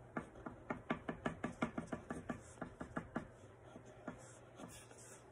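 A pen making quick, short strokes on paper, a rapid series of sharp taps about six a second for some three seconds, then a few scattered taps.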